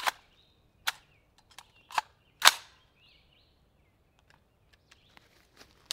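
Four shots from an AR-15 rifle in 5.56/.223, fired over about two and a half seconds, with the last shot the loudest.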